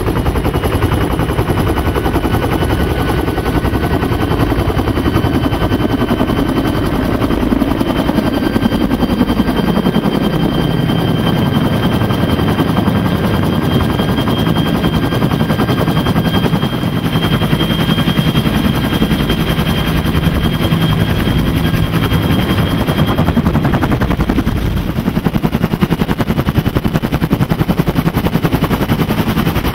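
Bell UH-1 Huey helicopter at flight power, its two-blade main rotor chopping in fast, steady pulses over a steady high turbine whine, heard from inside the cabin as it lifts off and flies.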